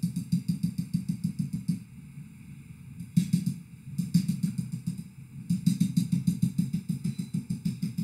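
Rapid tapping of a stylus on an interactive whiteboard, about eight sharp taps a second, as dotted lines are drawn stroke by stroke. The tapping comes in runs with a few short pauses.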